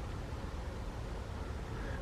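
Steady background noise: a low rumble under a faint even hiss, with no distinct events.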